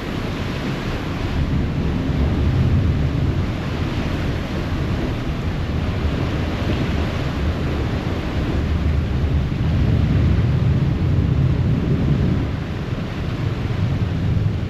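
Harbour ferry under way: a steady low rumble of its engines mixed with water churning along the hull, and wind buffeting the microphone, swelling slightly a couple of times.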